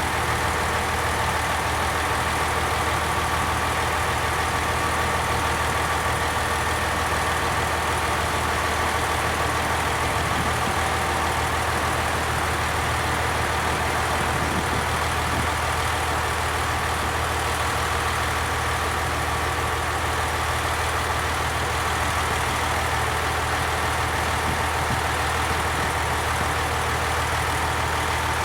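Steady engine drone of a diesel train, unchanging in pitch and loudness throughout.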